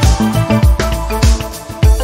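Background music with a steady kick-drum beat and sustained melodic notes.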